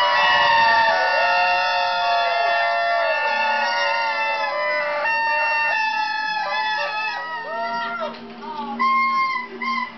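Several party horns blown at once: overlapping held blasts that waver and bend in pitch. They thin out near the end, leaving a short final blast.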